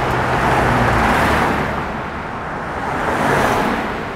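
Road traffic passing close by: a loud rush of tyre and engine noise from vehicles going past one after another. It swells, eases off, and swells again about three seconds in before fading.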